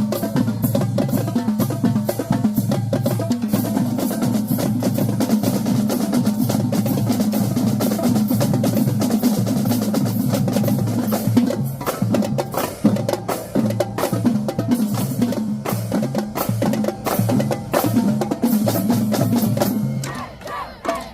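Marching drumline of snare, tenor and bass drums playing a fast cadence, with pitched bass drum notes under dense snare strokes. It stops about a second before the end.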